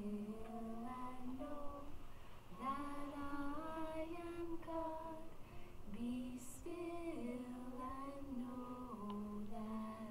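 A woman singing a slow, gentle melody in long held notes.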